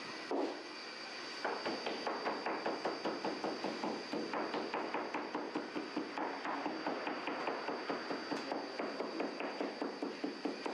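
Quick, even slaps of a baker's hands patting and shaping barbari dough on a floured table, about four to five a second, starting after one single knock and with a short pause about four seconds in. A steady high tone runs beneath.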